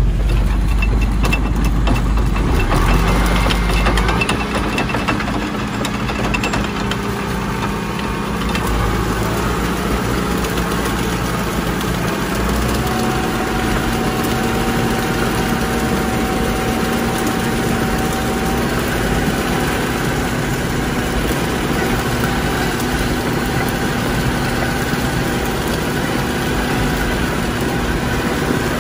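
John Deere 6300 tractor's four-cylinder diesel engine running steadily under load while pulling a ditcher through mud. Its note shifts slightly about four seconds in and again around twelve seconds in.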